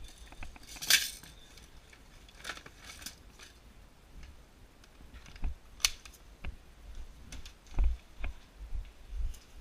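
Scattered sharp clicks and knocks, about eight in all, over a low rumble; the loudest come about a second in and near six seconds.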